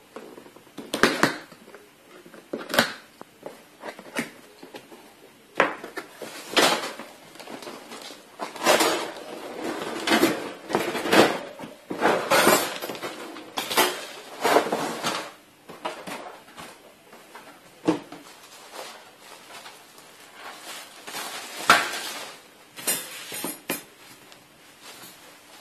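Sheet-metal parts of a folding notebook-style charcoal grill clattering and clanking as it is handled, in irregular knocks and short scrapes, busiest around the middle.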